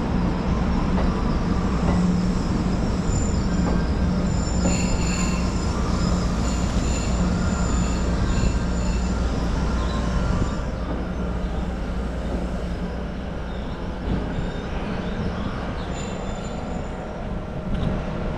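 EF64 electric locomotive hauling a rake of E235 series 1000 cars rolling in to arrive, with a steady low hum and thin high-pitched wheel squeal from about three to nine seconds in. The sound eases off after about ten seconds as the train slows.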